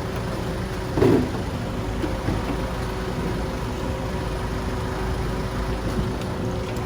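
A vehicle engine running steadily, a low rumble with a faint steady hum, and a brief louder sound about a second in.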